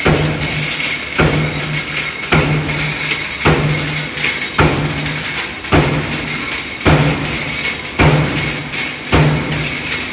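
Power punch press stamping parts from coil-fed strip, about one stroke a second: each stroke a sharp thud followed by a short low hum, over a steady high whine.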